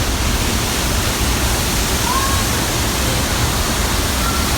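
Steady, loud rush of the large Pailón del Diablo waterfall close at hand: a dense even noise with a heavy low rumble.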